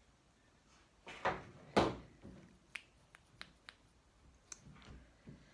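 Handling of a lipstick and its packaging: two soft knocks, then a few short, sharp clicks spread over a couple of seconds.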